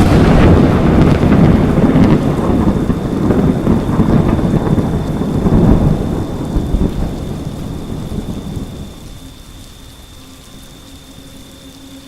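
Thunder: a long rolling rumble, loudest at the start and dying away over about nine seconds.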